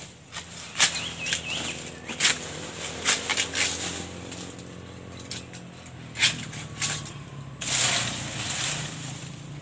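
Dry salak palm fronds and fallen leaf litter crackling and snapping as they are handled and stepped on, with several sharp cracks and a longer rustle near the end.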